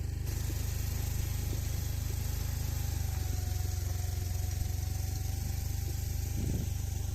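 An engine running steadily at idle, a low pulsing rumble, with a few light knocks near the end.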